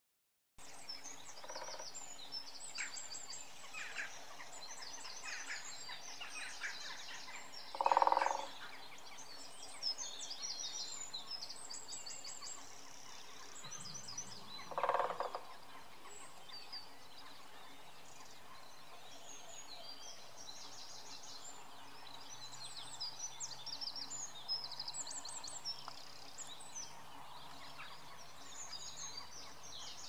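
Great spotted woodpecker drumming on a tree: short, very fast rolls about half a second long, the two loudest about a quarter and halfway through, a faint one near the start. Small songbirds sing and chirp high-pitched throughout.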